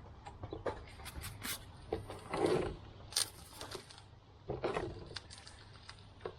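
Metal hand tools clinking and rattling while working at a car's brake caliper: a string of sharp metallic clicks with a few short, longer rattles, the loudest about two and a half seconds in.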